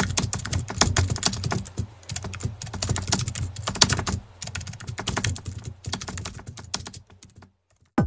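Rapid computer-keyboard typing clicks, irregular and fast, with short pauses between runs. The run stops about half a second before the end.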